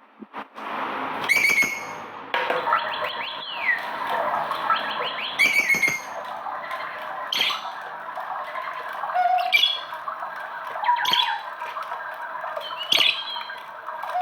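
Small pet parrots squawking: loud, sharp calls about every one to two seconds over steady chattering.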